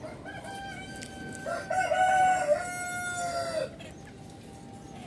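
Rooster crowing: one long, drawn-out crow of about two seconds that dips in pitch at the end, overlapping a fainter call that starts about a second earlier.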